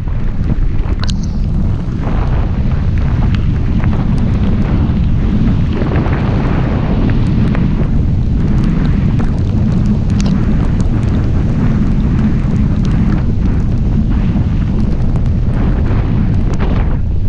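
Wind buffeting the microphone of a camera on a moving car in heavy rain: a loud, steady low rumble with small scattered ticks through it.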